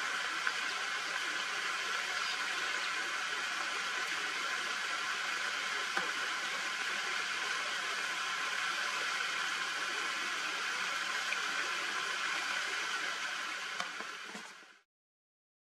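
Steady, even high hiss of an insect chorus in dry bush, with no voices. It fades out near the end.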